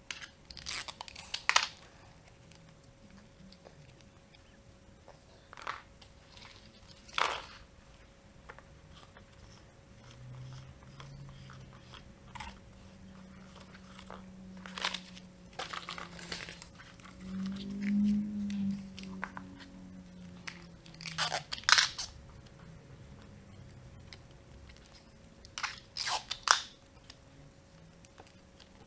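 Rolled paper tubes and sticky tape being handled: about six short bursts of crunching and rustling, spread several seconds apart.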